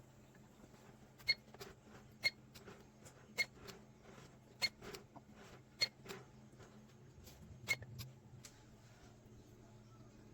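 A series of sharp clicks, about six louder ones each with a short high ping, spaced about a second apart, with fainter taps between them; they stop after about eight seconds.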